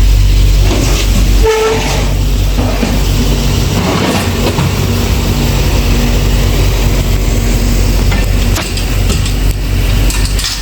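A vehicle engine running with a loud, steady low rumble, and a short beep about a second and a half in.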